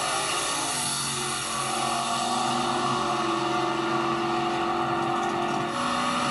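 Drag-racing cars' engines running hard at high revs down the strip. The pitch climbs about a second in and then holds steady.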